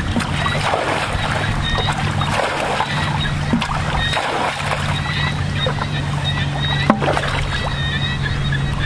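Shallow muddy water splashing and sloshing as someone wades and hacks at a mud bank with a hoe, with a few sharp knocks. A steady low hum runs underneath.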